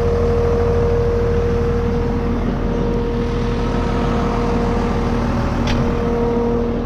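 Tractor engine idling steadily: a low rumble with a steady whine over it. A single short click comes near the end.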